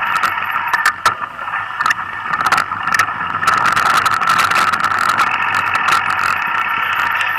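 Mountain bike riding down a rough dirt trail: frequent sharp knocks and rattles from the bike over the bumps, over a steady high-pitched buzz.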